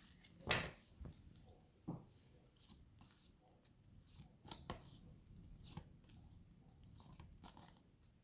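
Faint, scattered soft clicks and rustles of a pack of flashcards being handled and flipped one after another.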